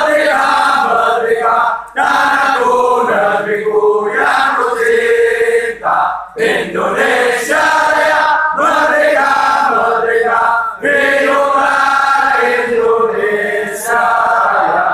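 Many men's voices singing together in unison, long held phrases with short breaks between them.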